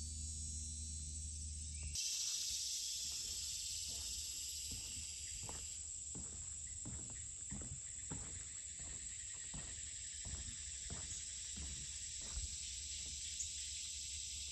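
Steady, high-pitched chorus of summer insects over footsteps on a wooden boardwalk, about two steps a second.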